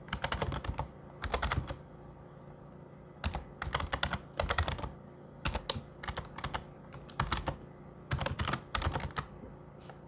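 Computer keyboard being typed on in short bursts of rapid keystrokes, with brief pauses between the bursts.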